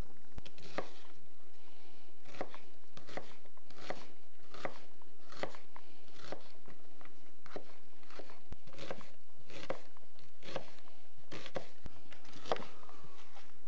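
Knife chopping vegetables on a cutting board: slow, even strokes, roughly one a second.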